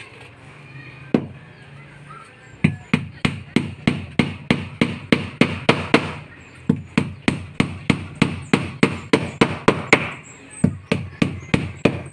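Hammer driving nails into the plywood side panel of a wooden flat boat hull, fastening it to the frame. There is a single blow about a second in, then a steady run of sharp blows about three a second, with a brief pause near the end.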